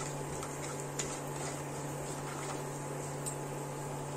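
Badi (sun-dried lentil dumplings) frying in shallow oil in a nonstick pan: a steady sizzle full of small crackles and a few sharper ticks, over a steady low hum.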